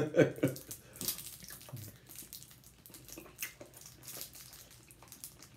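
Small wet mouth clicks of chewing taffy-like candy, mixed with soft crinkles of a candy wrapper being picked open: a scatter of quiet clicks and rustles. A short bit of voice comes right at the start.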